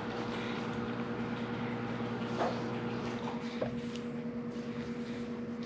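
Hands kneading and squeezing a soft cornstarch-and-conditioner dough, giving faint squishy handling sounds and a couple of small ticks, over a steady low hum in the room.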